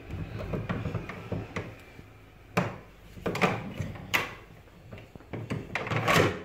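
A brass box lock on a door being worked by hand: scuffing and handling noise, then several sharp clacks of the lock and door in the second half.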